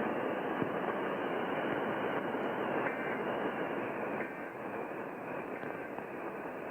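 Radio static: a steady hiss on a received broadcast channel, with no programme audio on the air.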